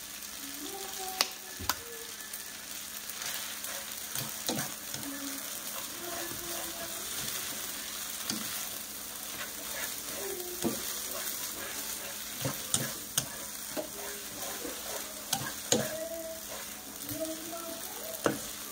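Fried instant noodles sizzling in a nonstick frying pan over a gas flame as they are stirred and turned with a plastic spatula. Sharp clicks and knocks of the spatula against the pan come every second or few.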